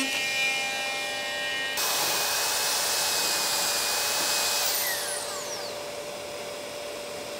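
An oscillating multi-tool cutting the fiberglass of a rudder shell. About two seconds in it gives way to a Makita 9031 belt sander grinding the fiberglass edge with a steady high whine. Near five seconds the whine falls as the sander spins down, and a lower steady hum carries on beneath.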